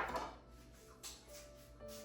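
Quiet background music with held notes, opened by a sharp knock that dies away over about half a second, and a faint click about a second in.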